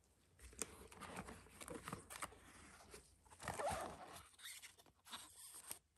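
Nitrile-gloved hands lifting a cellophane-wrapped cardboard box out of a fabric-lined case and handling it: soft rustling, scraping and crinkling in irregular bursts, loudest a little past halfway.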